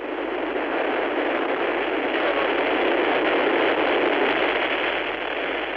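Engines of a Soyuz launch vehicle during lift-off and climb: a steady rushing noise that swells toward the middle and fades near the end. It sounds thin and narrow, as on an old film soundtrack.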